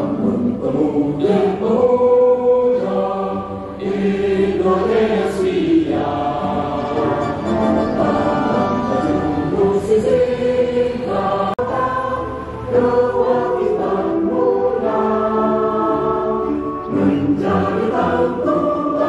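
A choir singing a slow song with long held notes, with musical accompaniment.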